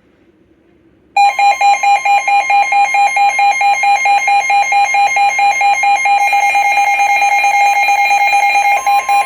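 Emergency alert receiver's electronic alarm sounding loudly about a second in: a rapidly pulsing, warbling tone that switches quickly between pitches and goes on without a break. A second tone joins near the end.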